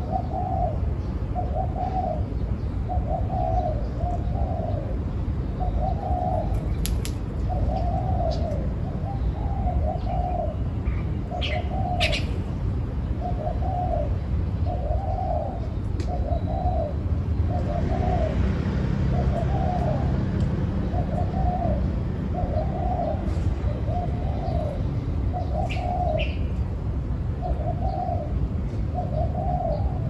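Spotted dove cooing: a steady run of short, low coos, about one a second, over a steady low rumble, with a few faint high chirps about a third of the way in.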